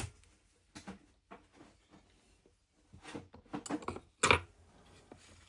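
Small metal parts of a watchmaker's jewel press accessory set, reamers and reamer holders, being handled and clicking against each other and their case. A sharp click at the start, a few light clicks, then a quick run of clicks past halfway and one louder knock near the end.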